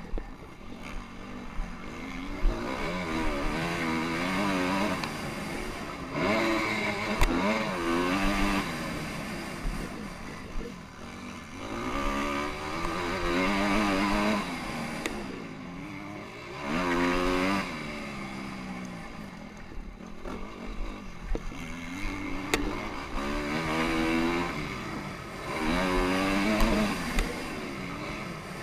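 Honda CRF250R's single-cylinder four-stroke engine revving hard, the pitch climbing under throttle and dropping as it is rolled off, again and again through the gears on a motocross track. A few sharp knocks cut in here and there.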